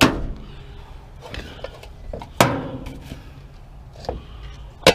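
Metal clanks from a large metal cooking pot and scrap being handled on a pickup truck's tailgate: a sharp knock at the start, then a louder clank with a short ring about two and a half seconds in, and a lighter click near the end.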